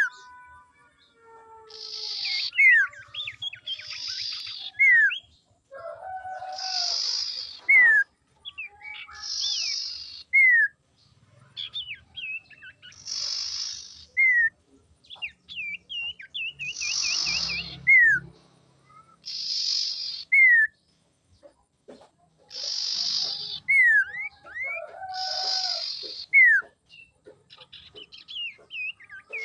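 Common iora calling over and over. A harsh, rasping note is paired with a sharp falling whistle, repeating every two to three seconds, with short warbled trills between.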